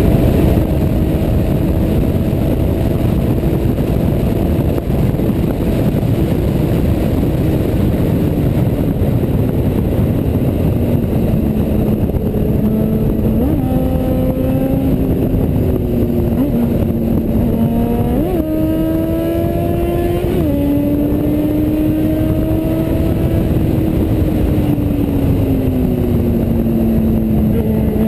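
Yamaha XJ6's inline-four engine running under way, its pitch holding, sliding down, then jumping up sharply several times in the second half and easing off slowly after each rise. Heavy wind noise rushes over the microphone throughout.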